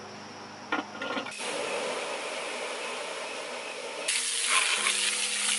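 Garden hose spray nozzle spraying water over hot coals, with a steady hiss of spray and steam as the coals are put out. A few sharp clicks come about a second in, and the spray grows louder about four seconds in.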